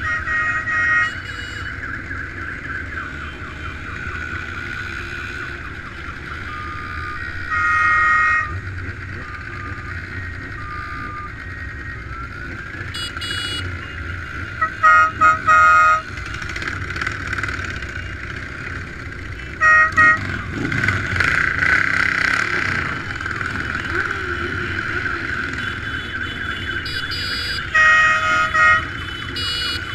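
Motorcycle horns honking in repeated short blasts, several times in quick pairs or triplets, over the steady running of motorcycle engines and road noise from a moving bike.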